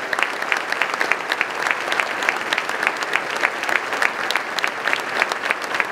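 Large audience applauding, a steady, dense clatter of many hands clapping.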